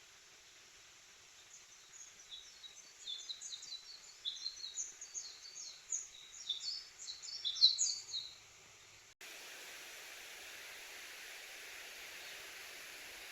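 A small songbird singing a long, rapid song of many short high chirps, loudest near its end. About two-thirds of the way through it cuts off abruptly, replaced by a steady rushing hiss.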